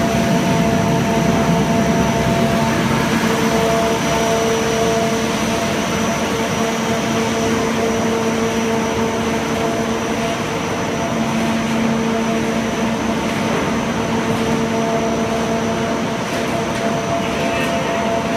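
Pet food processing line machinery running: a steady, even drone with a constant hum.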